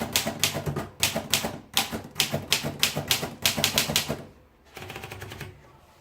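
Royal Portable Model P manual typewriter being typed on: a quick run of sharp keystrokes, about four a second, stopping about four seconds in, followed by a quieter burst of rapid small clicks from the machine's mechanism.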